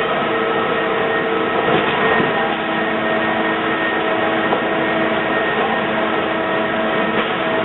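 Ledinek Eurozink 12 finger-jointing line for structural timber running: a loud, steady mechanical whir with several held whining tones from its motors and cutter heads.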